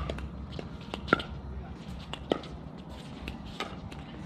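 A pickleball rally: hard paddles popping a plastic ball back and forth, four sharp hits about a second and a quarter apart.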